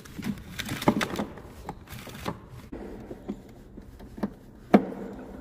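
Rustling and light clicking as loose wires and the meter's plastic current-sensing coil are handled, with one sharp click near the end.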